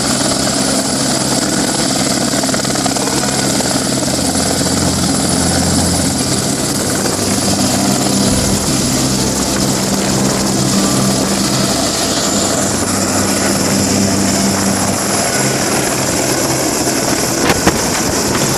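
Helicopter in flight: steady rotor and engine noise with a high, steady whine above it.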